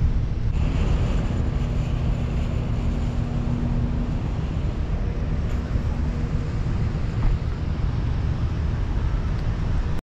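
Steady low outdoor rumble, with a faint hum from about one to four seconds in.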